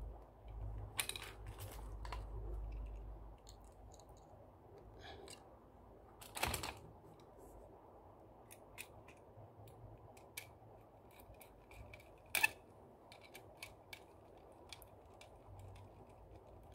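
Faint clicks and ticks of hands handling an air conditioner wall switch and its wires while fitting a wire into a terminal, with two louder knocks about six and twelve seconds in. A low rumble sits under the first few seconds.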